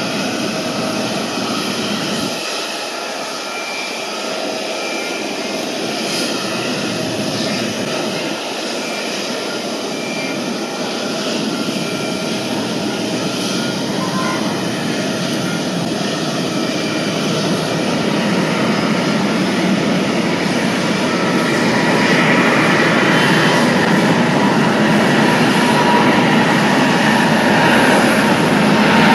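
Boeing 747-8's four GEnx-2B jet engines running with a steady rush and whine, growing louder through the second half as thrust comes up for the take-off roll.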